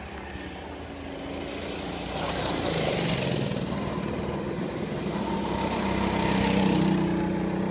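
Go-kart's small engine running, growing louder as the kart comes through the corner and passes close by, loudest about six to seven seconds in.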